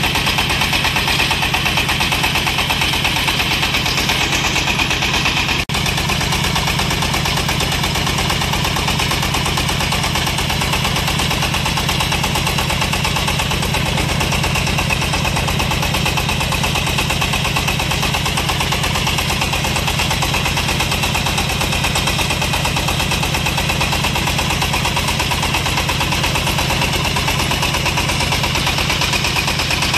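Engine of a small portable hydraulic water well drilling rig running steadily under load, a rapid even chugging as it drives the rig's hydraulics to turn the drill rod. There is a brief dip about six seconds in.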